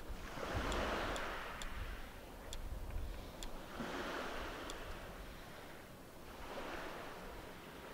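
Small river waves lapping on a gravel bank, in soft swells about every three seconds. Wind rumbles on the microphone through the first half.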